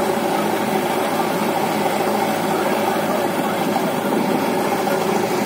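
Diesel engines of a JCB backhoe loader and a John Deere tractor idling steadily.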